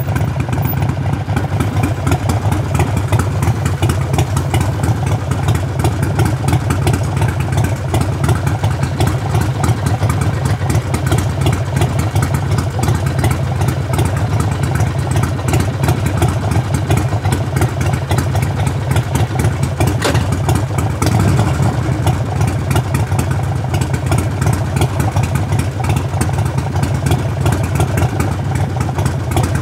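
Harley-Davidson Sportster Forty-Eight's air-cooled V-twin exhaust running at a steady, even engine speed, with one brief sharp tick about twenty seconds in.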